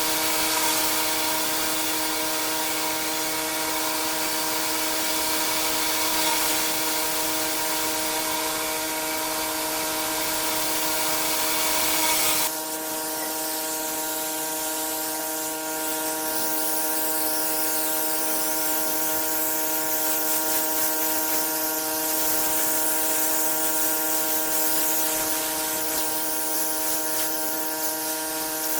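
Pressure washer running with a steady, even-pitched hum under the hiss of its high-pressure water spray. About twelve seconds in, the hiss suddenly becomes softer while the hum continues.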